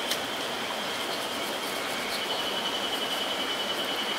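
Shallow mountain stream running over stones: a steady rush of water, with a thin, high, steady trill above it and a single light click just after the start.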